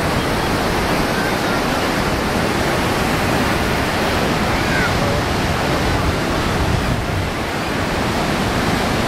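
Ocean surf washing onto the beach, a steady, even rush of water with no breaks.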